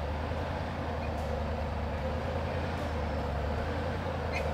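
Engine of an off-road 4x4 running steadily with a low, even drone.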